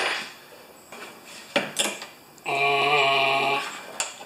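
Small metal hand tools clinking and knocking a few times, with one drawn-out, steady vocal groan from a man lasting about a second, midway through.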